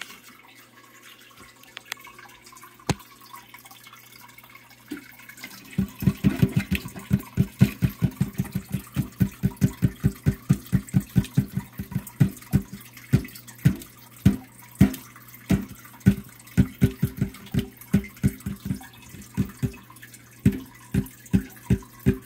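Water glugging and plopping in a small aquarium, over a steady low hum. About six seconds in it becomes a rapid run of short low plops, roughly three to four a second.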